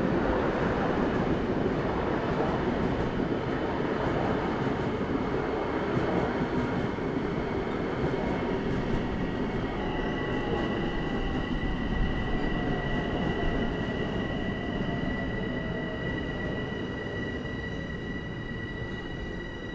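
Long Island Rail Road electric commuter train passing through a street grade crossing: a steady rumble of the cars on the rails that eases off near the end. About halfway through, a steady high-pitched tone joins it and holds.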